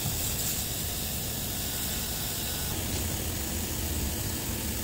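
Steady machine-shop background noise: a low hum with an even hiss, the running noise of the CNC machining centre and shop around it while the spindle stands still.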